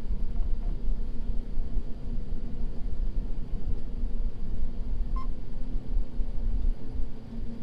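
John Deere T670i combine harvester running steadily as it drives, a constant low engine rumble, with one short electronic beep about five seconds in.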